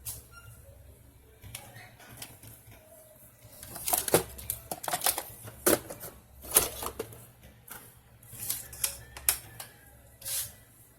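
Irregular clicks, taps and light clatter of small parts and tools being handled while a TV main board is removed and refitted, over a faint steady low hum. The clicking comes in two busy spells, one around the middle and one near the end.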